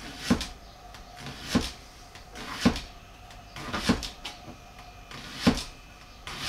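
Kitchen knife slicing through a leek and striking a wooden chopping board: five crisp chops, a little over a second apart.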